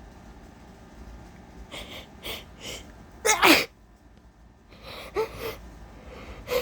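A woman's sneeze, allergy-driven: three quick breathy intakes build up, then one loud sneeze about three seconds in, followed by shaky, gasping breaths.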